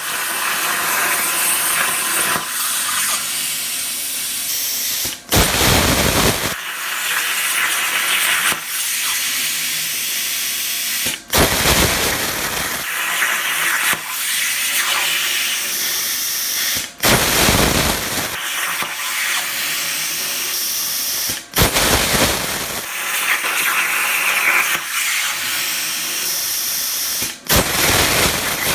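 Razorweld 45 plasma cutter on a CNC table cutting 16-gauge sheet steel at about 32 amps: a steady, loud hiss of the arc and air. About every five to six seconds it cuts out for an instant and comes back with a short, harsher, fuller burst.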